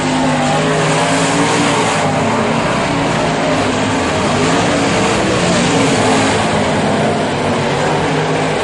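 Dirt late model race cars' V8 engines running on a dirt oval, loud and continuous, their pitch rising and falling as the cars go past.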